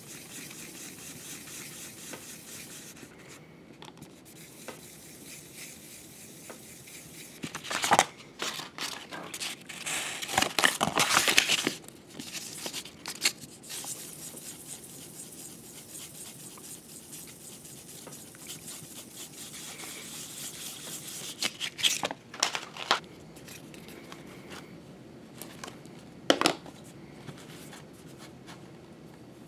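Small metal tensioner roller from a Tippmann Boss stitcher rubbed back and forth by hand on fine wet sandpaper, polishing it smooth: a gritty scraping that comes in spells, loudest about eight to twelve seconds in and again around twenty-two seconds. A short sharp click comes near the end.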